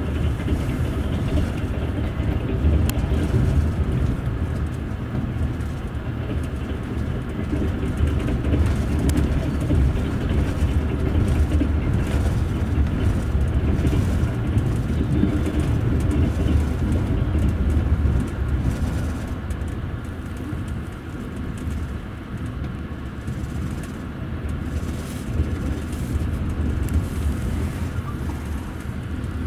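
Double-deck passenger rail coach running along the track, heard from inside: a steady low rumble of the wheels rolling on the rails with a few faint clicks, easing slightly after about two-thirds of the way through.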